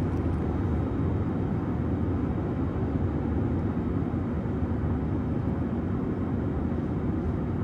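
Jet airliner in flight, heard inside the cabin: a steady, low rumble of engines and rushing air.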